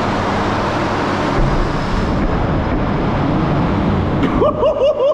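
Large 600 mm exhaust fan running at full speed: a steady rush of air with a low hum. Near the end comes a quick run of short squeaky chirps, about five a second.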